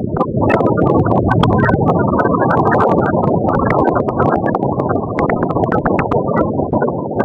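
A small vehicle running along a rough dirt road: steady engine and road noise with frequent short clicks and knocks from the bumps.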